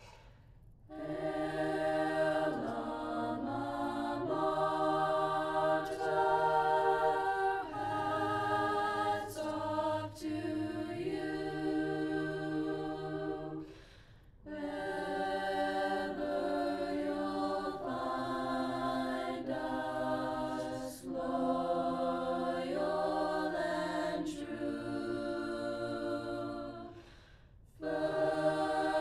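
A choir singing a slow school alma mater in long held phrases, with short breaks between verses about 14 seconds and 27 seconds in.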